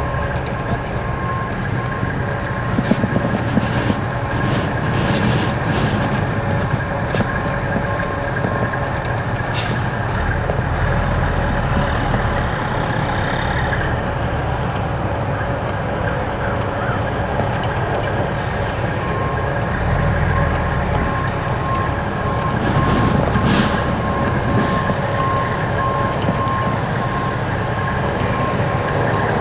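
Farm machinery running with a steady drone and a constant whine over it, with a few scattered metallic knocks and clanks.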